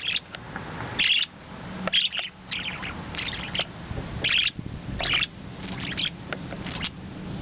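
Pet parakeets chirping and chattering in short bursts, about one burst a second, while they have their mirrors in the cage.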